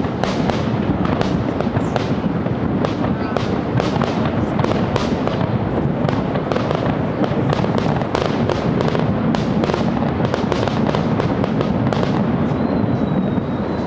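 Fireworks display: aerial shells bursting in a dense, continuous barrage, sharp bangs and crackle piling over a low rumble.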